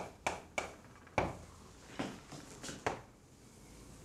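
Chalk on a blackboard: a run of sharp taps and short scrapes as the chalk writes and draws strokes, the loudest tap about a second in, going quiet after about three seconds.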